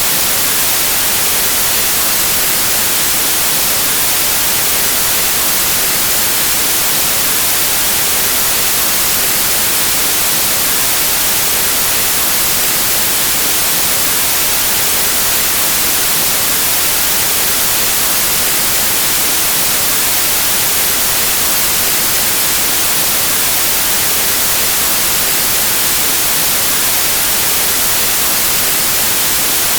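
Steady white noise: an even, hissing static that does not change.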